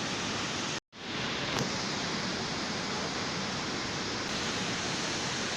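Steady rushing water, an even hiss with no pauses, cut off for an instant just under a second in before it fades back up.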